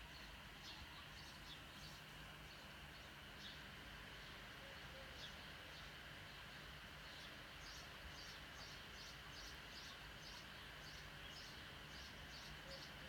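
Near silence: faint steady hiss of room tone, with faint short high chirps that repeat about twice a second in the second half.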